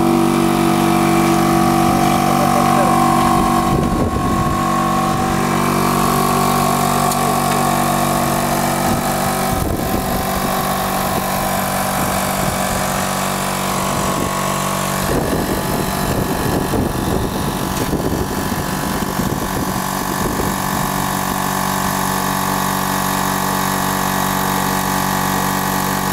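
A small machine running with a steady hum made of several held tones, with some clattering and handling noise in the middle.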